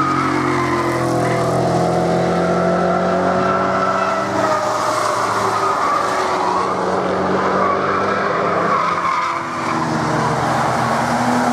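Several cars being driven hard past one after another, engines revving, their pitch rising and falling as they pass and shift. A brief dip in loudness comes about nine and a half seconds in, between cars.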